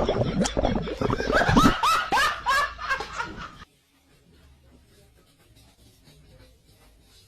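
People laughing in repeated bursts, which cut off suddenly about three and a half seconds in and leave only a faint background.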